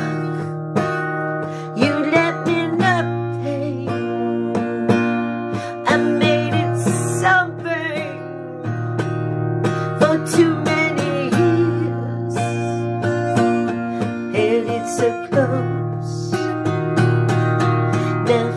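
Acoustic guitar playing sustained chords, with a woman's voice singing over it at times.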